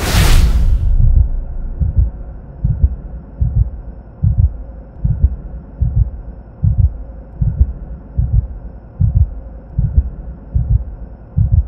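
Heartbeat sound effect in a documentary montage: a loud whoosh, then low, regular double thumps about every second and a half over a faint steady drone.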